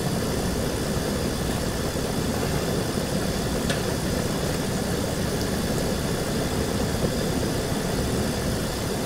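5-ton air-conditioning condensing unit running steadily, its compressor and condenser fan making a continuous hum and rush. A faint click a little under four seconds in.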